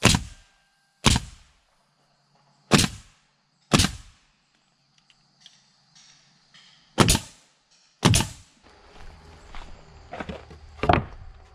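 DeWalt pneumatic coil nailer firing nails into a pine trim board: six sharp shots over about eight seconds, in uneven pairs. Softer knocks of boards being handled follow near the end.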